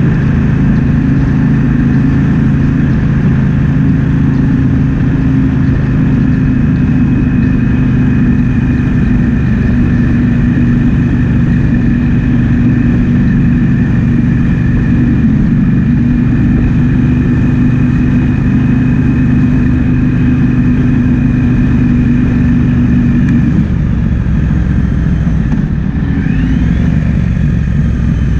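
Triumph Speed Twin 1200's parallel-twin engine running steadily under way, with wind noise across the microphone. About 23 seconds in, the steady engine note drops away and changes.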